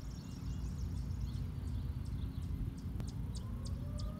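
Distant Federal Signal 2001-130 outdoor warning siren starting up about three seconds in, a faint tone that rises in pitch as the siren winds up. Under it a low rumble and a steady series of short high chirps, about three a second.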